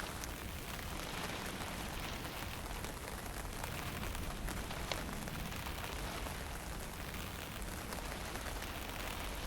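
Fine drizzle falling steadily in wind, an even hiss with a few faint drop ticks over a low wind rumble.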